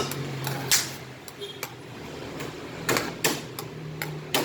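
Several sharp knocks and clacks of a utensil against a pan, about five spread over a few seconds, over a low steady hum.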